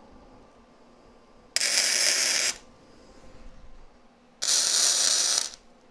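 Flux-core arc welding with .035 wire from a Vulcan MigMax 215: two tack welds, each arc crackling for about a second, the first about a second and a half in and the second near the end.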